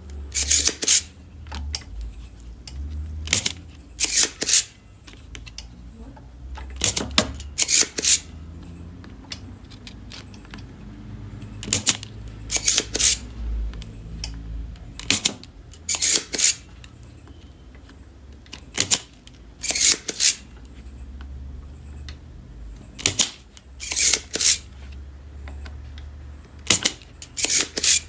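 Desoldering work on an inverter circuit board while its H-bridge MOSFETs are removed: short, sharp mechanical snaps with a hiss, in groups of two or three about every three to four seconds.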